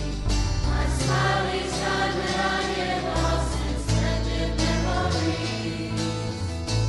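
Background music: a slow song with choir-like voices and no clear words over held bass notes.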